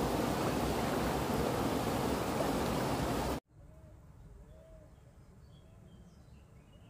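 A loud, steady rushing noise on a river kayak trip cuts off abruptly about halfway through. What follows is quiet outdoor ambience with a few faint bird calls.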